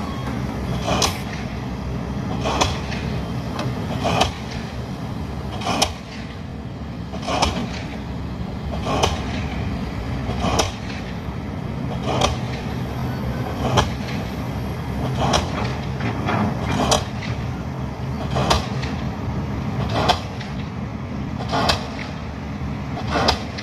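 Pile-driving hammer striking a foundation pile at a steady pace, about one sharp blow every one and a half seconds, each with a brief ringing tail. Excavator diesel engines run steadily underneath.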